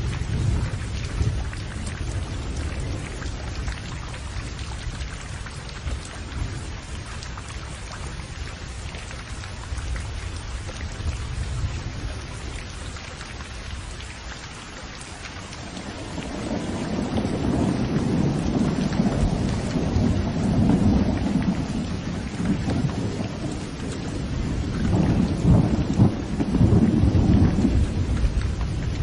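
Thunderstorm: steady rain falling, with thunder rumbling low under it. The rumble eases off through the first half, then a long roll of thunder swells up around the middle and another near the end.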